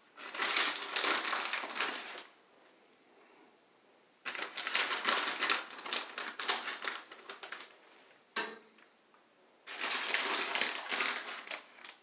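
Plastic bag of shredded mozzarella crinkling and rustling as it is handled, in three bursts of two to three seconds each.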